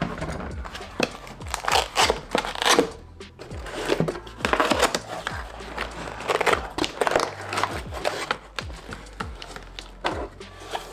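Cardboard box flaps and tabs being pulled open by hand, with cardboard scraping and plastic wrap crinkling, in irregular bursts.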